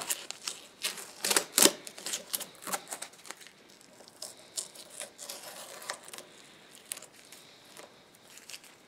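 Tape being peeled and unwound by hand from a wooden table leg: a quick run of crackling ticks, loudest in the first three seconds and then sparser and fainter.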